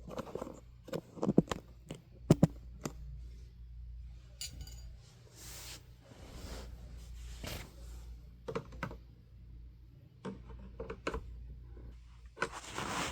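A plastic fan grille and fan housing being handled, with irregular clicks and knocks of plastic on plastic and a short scrape near the end, as the grille is set against the fan and shifted to line its holes up with the screws.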